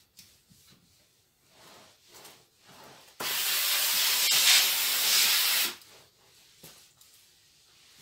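Steam iron letting out a burst of steam: a loud hiss that starts suddenly about three seconds in and cuts off about two and a half seconds later. Before and after it, the iron rubs softly as it slides over a terry towel.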